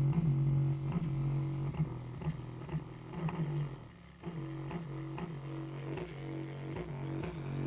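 Bass-heavy music played through a speaker driven by a homemade LA4425 chip amplifier, with a sustained low bass note under a rhythmic beat that drops out briefly about four seconds in.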